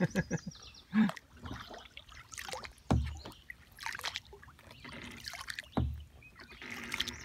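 Double-bladed kayak paddles dipping and pulling through calm water, with water trickling off the blades and a few dull knocks in between.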